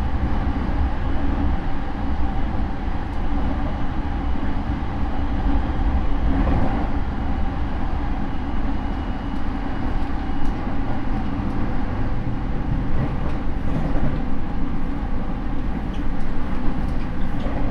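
Rinkai Line 70-000 series electric train heard from inside the car while running between stations: a steady low rumble of wheels on rail, with scattered light clicks from the track.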